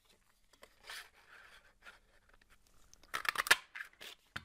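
Card stock and a hand-held paper punch being handled on the craft table: light paper rustles, then a cluster of sharp clicks and rustles about three seconds in.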